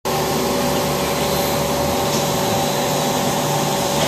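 Plastic-film recycling machinery running in a workshop: a steady, loud mechanical drone with a constant whine held through it.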